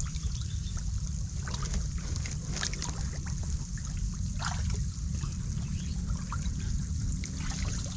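Shallow muddy water trickling and lightly splashing as people wade and grope with their hands in the mud for freshwater mussels, with small scattered ticks over a steady low rumble.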